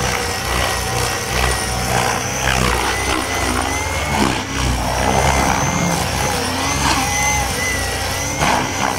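Radio-controlled model helicopter flying: a steady high-pitched engine and rotor whine that wavers slightly up and down in pitch as it manoeuvres.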